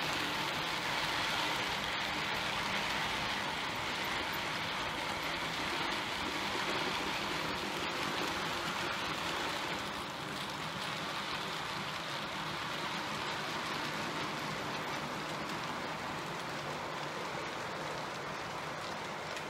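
Model railway engineering train of ballast and sleeper wagons running past on the layout's track: a steady rushing of small wheels and motors, easing slightly about ten seconds in as the train moves away.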